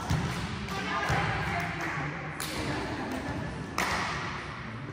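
A volleyball being struck during a game: two sharp hits about two and a half and four seconds in, over players' voices.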